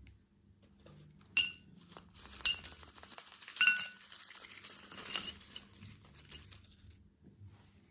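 Hard objects clinking together, four sharp clinks with a short ringing tail about one to one and a half seconds apart, with a light rattling and rustling between them that dies away near the end.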